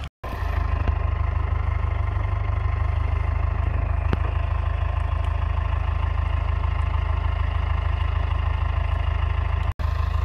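International 845XL tractor's diesel engine running steadily at idle. The sound drops out for an instant just after the start and again near the end.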